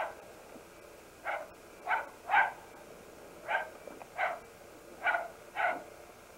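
Shetland sheepdog barking: about eight short, sharp barks, several coming in quick pairs.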